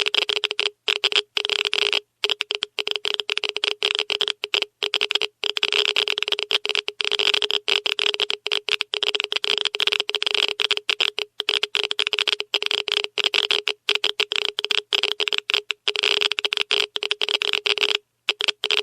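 Geiger counter clicking at a very high count rate, the clicks running together into a dense crackle broken by brief, irregular pauses: the sign of strong radiation.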